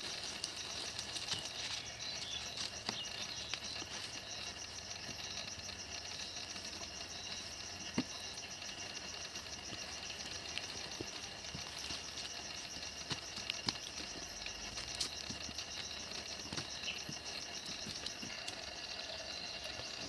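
Forest ambience: a steady high-pitched chorus of insects with a fast pulsing trill, occasional bird chirps, and a few scattered faint clicks and knocks.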